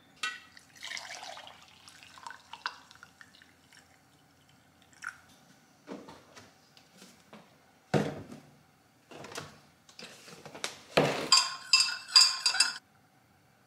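A metal spoon scraping and tapping in a ceramic mug as powder is scooped in, then a few knocks and a low thump as things are set down on the counter. Near the end, rapid ringing clinks as the spoon stirs coffee in the mug.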